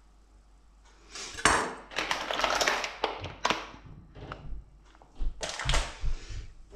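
Plastic packet of rice paper wrappers crinkling as it is picked up and handled, in several bursts. Near the end a plate knocks and shifts on the stone countertop.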